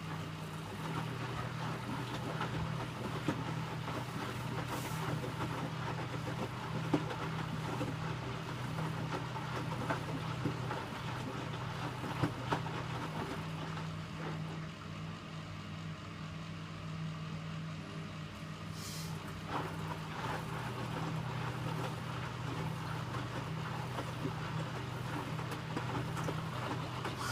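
Electrolux W455H commercial washing machine running through its Warm 60 programme: a steady motor hum that shifts slightly in tone a couple of times, with a few faint clicks and knocks.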